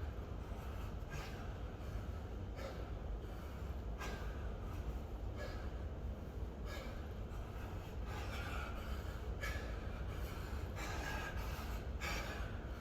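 A man breathing hard in short, heavy breaths, about one every second and a half, from the exertion of loaded kettlebell deep squats. A steady low hum sits underneath.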